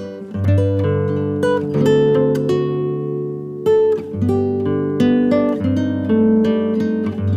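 Background music: an acoustic guitar picking a run of single notes that ring and fade.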